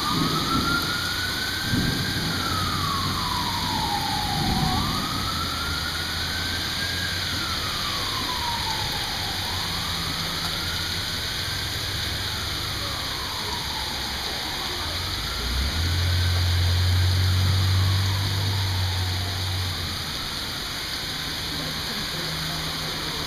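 A siren wailing in slow cycles, each a quick rise in pitch and a longer fall, about five times and growing fainter, over the steady hiss of rain. A low rumble swells for a few seconds about two-thirds of the way through.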